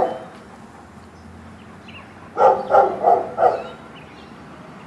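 A boxer-type dog giving four quick, high-pitched barks in a row, about two and a half seconds in.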